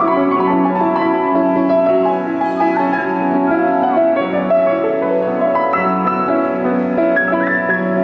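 Solo grand piano playing, with sustained, overlapping notes over a repeating low figure.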